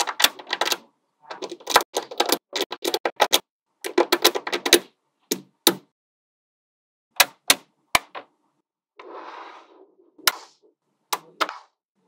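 Small magnetic balls snapping onto one another with sharp clicks, in quick clusters separated by pauses, with a brief softer rattle about three-quarters of the way through.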